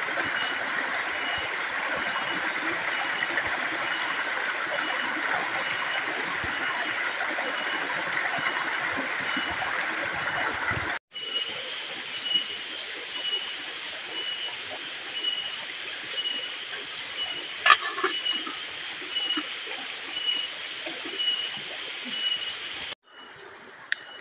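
Stream water rushing over rocks for the first half. After a sudden cut, a wood campfire crackles with scattered sharp pops. A faint high chirp repeats about twice a second throughout.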